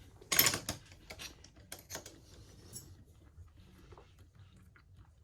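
Light clicks and scrapes of small tools and phone parts being handled on a repair bench, the loudest about half a second in, then a few scattered ticks fading out about three seconds in.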